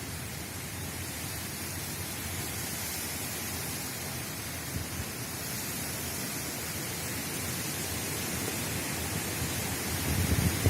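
Steady, even hiss of a heavy rain shower, growing slightly louder near the end.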